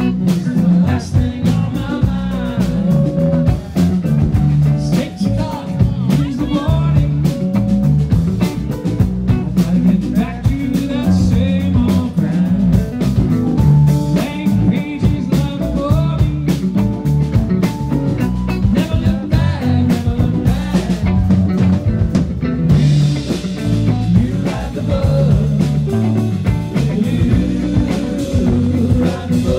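Live rock band playing, with guitar, bass and drums.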